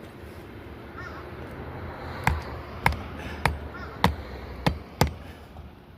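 Six sharp knocks in an even run, about half a second apart, over a steady low outdoor background noise.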